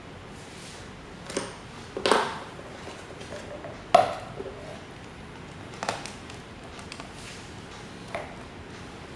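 Metal parts of an old desk fan clinking and knocking as they are handled: five short, sharp strikes a second or two apart, the one near the middle the loudest.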